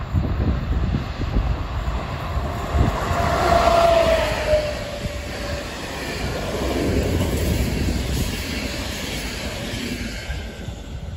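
Locomotive-hauled passenger train passing on a curve: its wheels on the rails rise to a peak as the locomotive goes by three to four seconds in, with a short whine that falls in pitch, then the coaches roll past and the noise eases off. Wind buffets the microphone throughout.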